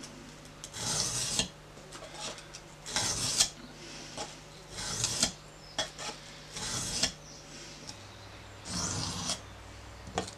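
Bushcraft knife blade pushed across the oiled fine side of a combination bench stone: a scraping rasp about every two seconds, five strokes.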